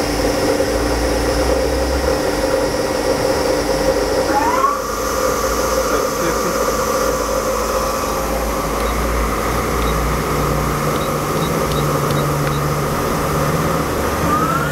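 Okuma Cadet LNC-8 CNC lathe spindle running in low gear range with a steady mechanical whine. About four seconds in, it speeds up with a rising whine and holds at the higher speed, and near the end it begins rising again as it is stepped toward its low-range maximum of 995 RPM.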